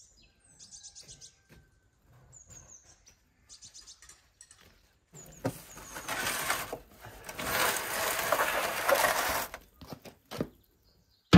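Small birds chirping a few times, then from about five seconds in a loud rough scraping as a metal tray carrying a foil-wrapped ram is pushed across the brick floor of a wood-fired oven, followed by a couple of knocks near the end.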